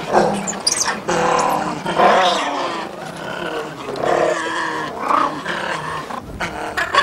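A man's voice calling out in several drawn-out phrases, with short pauses between them.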